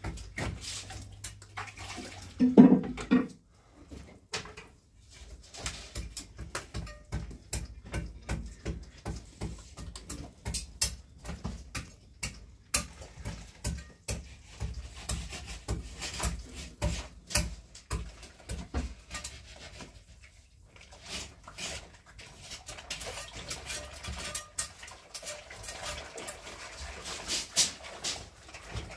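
A long string of irregular sharp clicks and knocks, with one short, louder low sound about two and a half seconds in.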